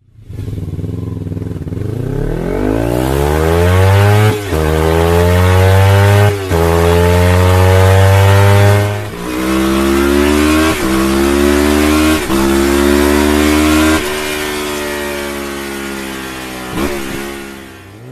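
Kawasaki Ninja sport motorcycle engine accelerating hard and shifting up through the gears, the pitch climbing and then dropping at each of about six shifts. Over the last few seconds it eases off and the pitch falls.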